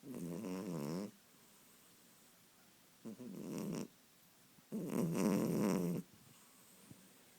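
Kitten snoring in its sleep: three snores a couple of seconds apart, each lasting about a second, the last one the longest and loudest.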